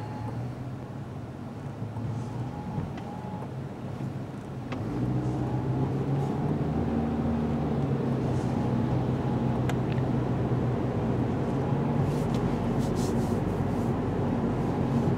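Car engine and cabin noise heard from inside the car, with the windshield wipers sweeping across wet glass about every two seconds. About five seconds in, the car pulls away and the engine and road noise rise, then hold steady.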